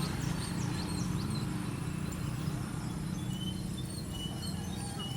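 Small birds chirping in short high calls over a steady low rumble.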